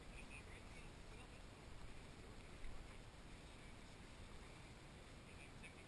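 Near silence: faint outdoor background with a low steady rumble.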